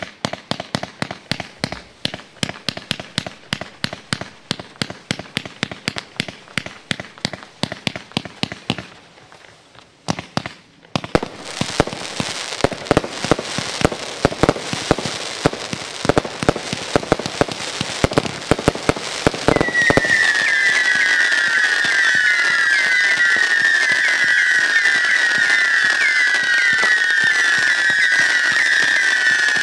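Lesli King of Siberia 120-shot firework display box (a multi-shot cake) firing: a rapid string of launch reports, about four a second, a short pause, then a denser run of shots with crackling bursts. From about two-thirds in, whistling shots take over, many overlapping whistles each falling in pitch.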